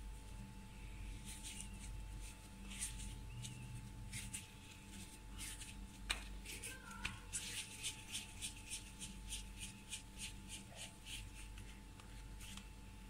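Hands rolling pieces of soft, flour-dusted dough into balls between the palms: faint brushing and rubbing strokes, which settle into a quick rhythm of about three to four strokes a second from about seven seconds in. There is one sharp click about six seconds in.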